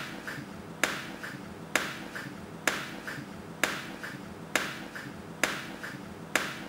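Sparse rhythmic beat of sharp clicks, about one a second, each followed by a fainter tick, over faint held tones.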